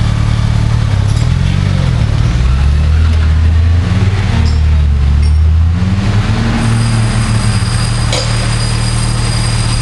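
Off-road trials vehicle's engine running at low revs, its pitch rising and falling several times as it works slowly over a steep bank on its winch rope. About two-thirds of the way in a thin steady high whine joins it, and there is a single sharp click near the end.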